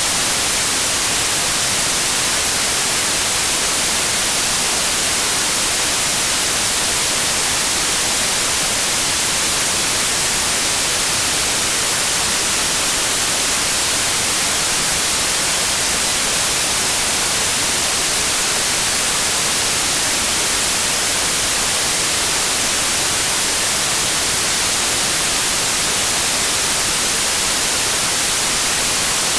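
Generated white noise: a steady, unchanging hiss, strongest in the high frequencies, with no other sound.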